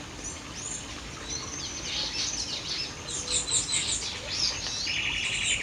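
Several songbirds chirping and singing together, the calls growing busier after about two seconds, with a quick buzzy trill near the end.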